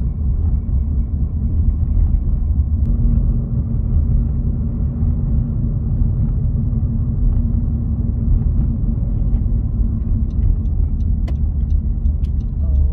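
Car driving, a steady low rumble of road and engine noise, with a light, regular ticking starting near the end.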